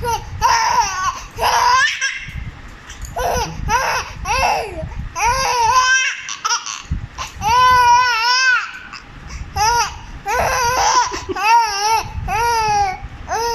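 A baby laughing in a string of short, high-pitched squealing bursts, one of them drawn out longer about halfway through. The laughter is set off by fake sneezes.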